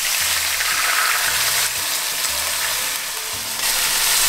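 Water darkened with gravy browning poured from a plastic jug into a hot aluminium pot over browned lamb shanks, sizzling steadily as it hits the hot metal. The sizzle eases a little about three seconds in, then picks up again.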